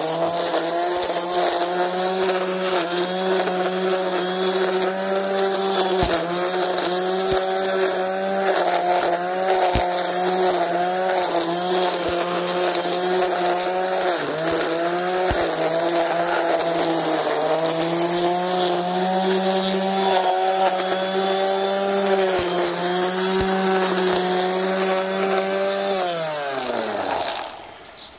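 Einhell electric string trimmer running at full speed, its motor whine dipping in pitch now and then as the nylon line cuts through long grass and weeds, with a few sharp ticks from the line striking stems. Near the end it is switched off and the whine falls away as the head spins down.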